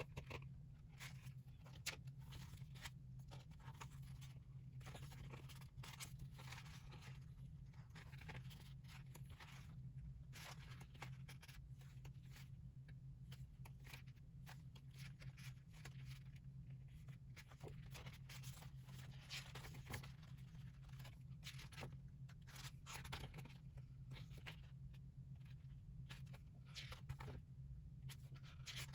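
Faint, irregular rustling, crinkling and scraping of album packaging being handled and opened, many short strokes, over a steady low hum.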